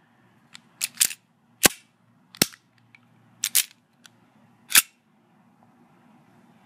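KWA Glock 26c gas blowback airsoft pistol worked by hand, slide racked and trigger dry-fired: a string of sharp mechanical clicks, some in quick pairs, stopping about five seconds in.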